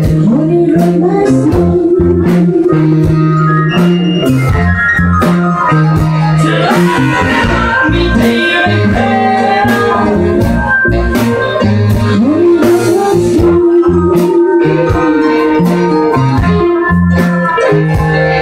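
Live blues band playing: a lead vocal with a held, sliding sung line, electric guitar, drums keeping a steady beat, and a stepping bass line underneath.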